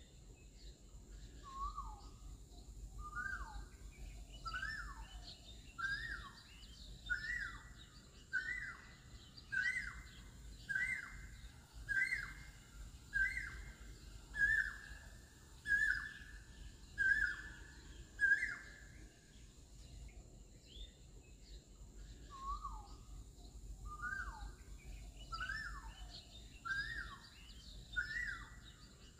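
A bird calling in a long series of repeated notes, a little more than a second apart, climbing in pitch and then levelling off before stopping. After a short pause the series starts again low and climbs once more. Other birds chirp faintly and higher behind it.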